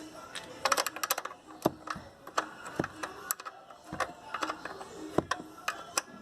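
Irregular metallic clicks and taps of a wrench tightening a bolt on a car door, with a quick run of clicks about a second in.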